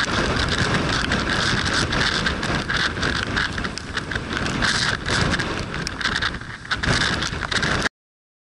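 Storm wind gusting hard across the microphone over heavy surf, in uneven swells of loudness. It cuts off suddenly to silence near the end.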